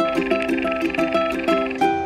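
Upbeat background music with quick, repeating plucked-string notes.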